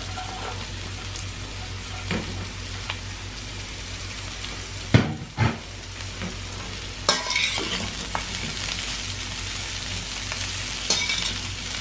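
Vegetables sizzling in hot oil in a stainless steel wok as they are stir-fried with a metal spatula. A few sharp knocks and scrapes of metal on the pan break the sizzle, the loudest a pair about five seconds in.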